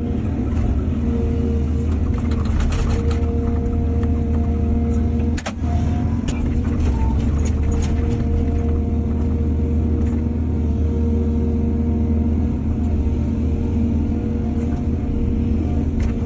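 Heavy diesel engine of earthmoving machinery running steadily under load, a deep rumble with a steady hum, briefly dipping about five seconds in.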